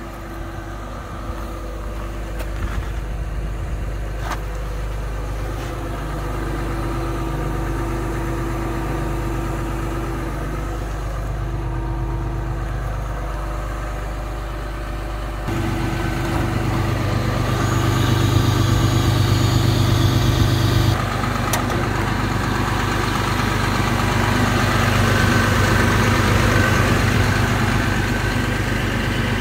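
Cat 323 Next Gen excavator's C7.1 diesel engine idling steadily. It gets louder about halfway through and louder still, with added hiss, for a few seconds about two-thirds of the way in.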